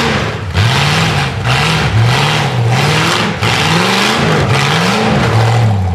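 Off-road rock buggy engine revving hard in repeated bursts as it climbs a muddy hill, the pitch rising and falling about once a second.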